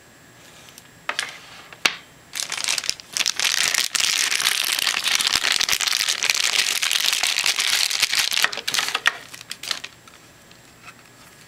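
Packaging being crinkled and handled while camcorder accessories are unwrapped: a couple of clicks, then several seconds of continuous crackling that fades out near the end.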